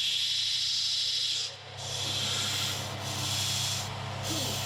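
Steel being sanded: a scratchy rasping that runs steadily, then goes on in stretches broken by short pauses about once a second.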